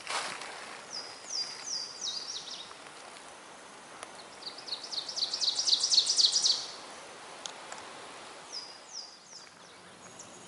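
Ovenbird singing its 'teacher-teacher-teacher' song: a string of about a dozen quick, repeated high notes that grows steadily louder for about two and a half seconds before stopping. Fainter short high chirps come before and after it.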